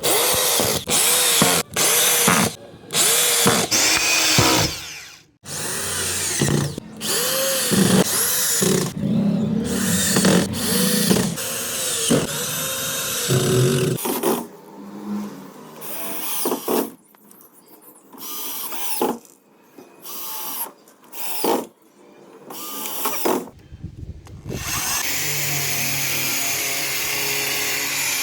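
Power drill run in many short trigger bursts, each spinning up and winding down in pitch, as in drilling or driving screws into wood. The bursts come thick and fast for about half the time, then more sparsely, and a steady machine noise takes over near the end.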